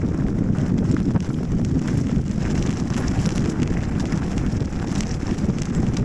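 Wind buffeting the microphone of a 360 camera on a moving mountain bike, a steady low rumble. Many small clicks and rattles from the bike and its tyres on the dirt track sound through it.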